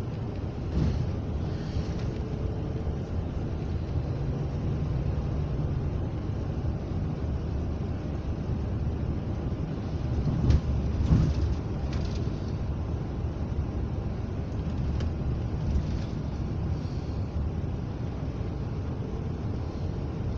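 Inside a coach bus driving through a road tunnel: steady low engine and tyre rumble, with a few knocks and rattles from bumps in the road, loudest about ten to twelve seconds in.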